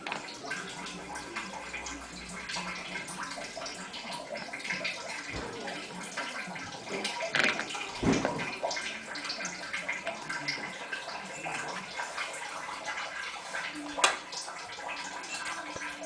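Water running and sloshing inside an Indesit WIE127 washing machine, with scattered light clicks and knocks. The machine has stopped draining with an F-11 error, and its drain pump is not kicking in.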